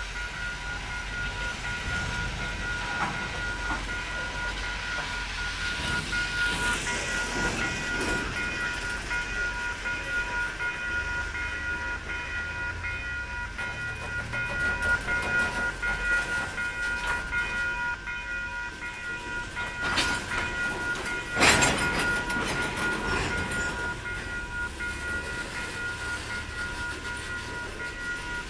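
Ballast work train rolling past, railcar wheels clattering on the rails with two sharp clanks about two-thirds of the way through, over a steady high ringing tone.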